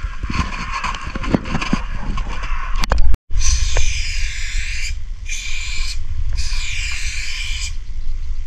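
Aerosol spray-paint can hissing in short bursts while letters are sprayed on a wall, with a few clicks and knocks in the first seconds. In the second half there are three separate sprays of about a second each, over a steady low rumble of wind on the microphone.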